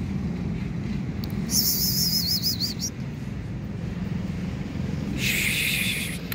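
Steady low street traffic rumble, with a brief high wavering squeak about a second and a half in and a short hissing burst near the end.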